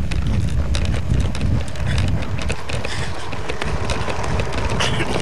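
Wind buffeting the camcorder microphone in a steady low rumble, with irregular knocks and footfalls as the camera is carried at a run.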